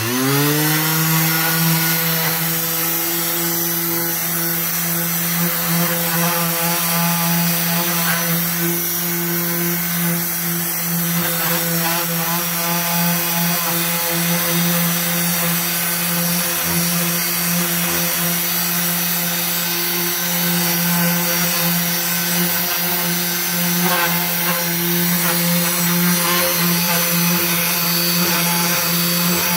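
Electric orbital hand sander switched on: its motor spins up in the first second, rising quickly in pitch, then runs at a steady hum while sanding a wooden board.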